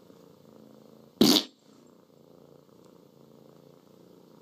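Domestic cat purring faintly and steadily, broken about a second in by a single short, loud burst of noise.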